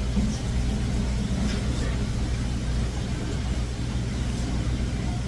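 A steady low mechanical hum running at an even level, with a few faint ticks.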